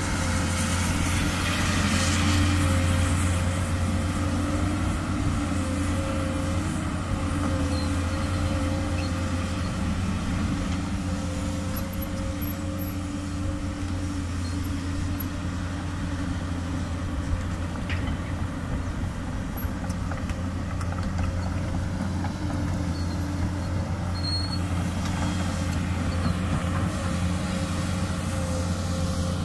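Komatsu PC200 excavator's diesel engine running steadily with a low, even drone.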